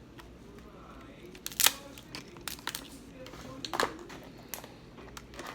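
Crab shells cracking and snapping as they are broken apart: a series of sharp cracks, the loudest about a second and a half in and another strong one near four seconds.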